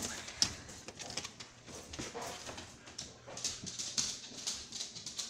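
A pet dog panting close to the phone, with irregular rustling and knocks as the phone is moved about.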